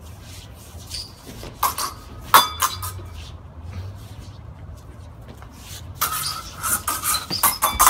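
Steel rapier blades clashing in a sparring bout, with sharp clinks that ring briefly. A first flurry comes about two seconds in, and a faster run of clashes follows from about six seconds on.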